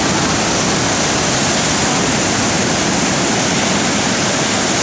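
Storm surf breaking continuously, a loud steady roar of rough sea water with no single wave standing out.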